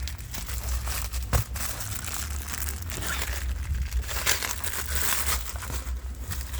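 Crinkling and rustling of packaging as new cabin air filters are handled, with scattered sharp clicks, the loudest about a second and a half in.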